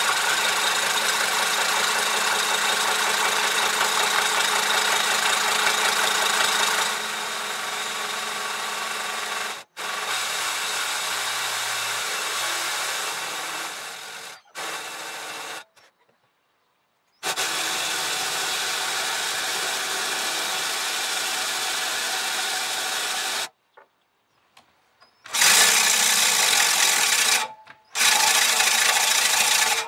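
Power drill running steadily, spinning a reel mower's cutting cylinder in reverse so that the blades lap against the bed knife to sharpen them. The run cuts off and restarts several times, and is louder near the end.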